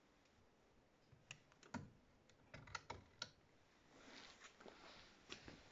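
Faint, scattered clicks and light knocks of hands handling the generator's panel and casing, about eight in two seconds, followed by a soft rustle.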